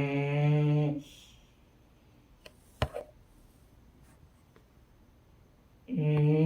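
A woman snoring: a steady, droning snore that ends about a second in, a quiet pause with a faint click near the middle, then the next snore starting near the end.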